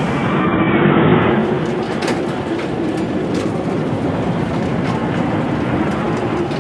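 Roller coaster cars rattling along the track: a steady rumbling clatter with a few sharp clicks.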